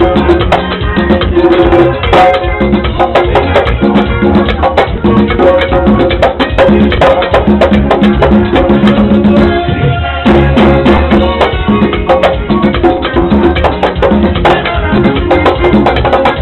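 Pair of congas played by hand in a punta rhythm: a fast, steady stream of drum strokes.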